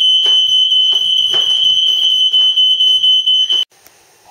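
Smoke alarm sounding a loud, continuous high-pitched tone that cuts off suddenly near the end, with a few faint knocks underneath.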